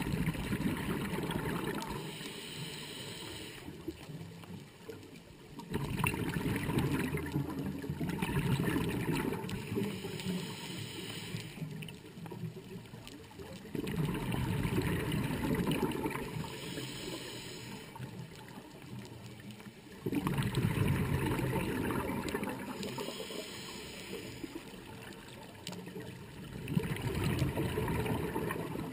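A scuba diver breathing through a regulator underwater. A gurgling rumble of exhaled bubbles comes back every six to seven seconds, and each one is followed a couple of seconds later by a shorter hiss.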